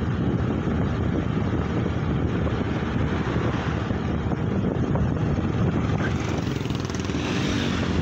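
Wind buffeting the microphone of a phone carried on a moving two-wheeler, over a steady low rumble from the ride. A brief hiss swells near the end.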